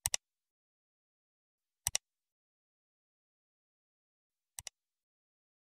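Computer mouse-click sound effects marking an on-screen cursor pressing subscribe, bell and like buttons: three quick double clicks, the last one fainter, in otherwise dead silence.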